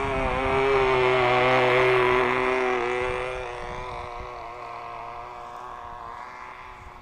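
Small KMD-2.5 model aircraft engine buzzing at full throttle as the hand-launched plane climbs away, growing louder for the first couple of seconds and then fading with distance. Low wind rumble on the microphone underneath.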